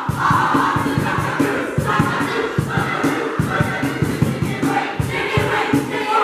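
Music with a steady beat mixed with a group of young voices shouting and singing together.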